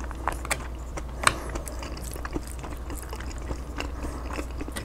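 Close-miked eating: a plastic fork clicking and scraping through a takeout bowl of food, with soft wet chewing sounds. There is a sharper click about a second in.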